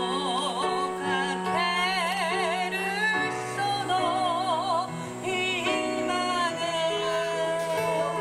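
A woman singing with a wide vibrato, amplified live, over held chords from an electric stage keyboard.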